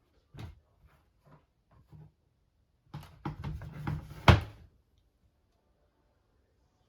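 A few light knocks, then a burst of clattering handling noise that ends in one sharp loud bang about four seconds in, typical of a door or cabinet being moved and shut.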